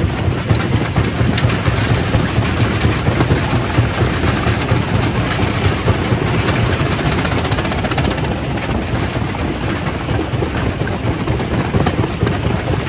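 Quarry primary rock crusher running and crushing stone: a loud, steady mechanical din with a deep drone and many short cracks and knocks of rock breaking.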